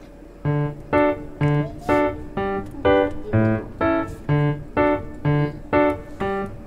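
Background music: a bouncy tune of short, bright keyboard-like notes about two a second, with a bass note under every other one, starting about half a second in.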